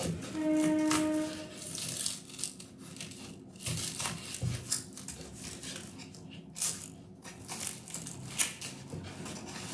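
Papery onion skin crackling and tearing as the onion is handled and peeled, with scattered small knocks. A short steady tone sounds for about a second near the start.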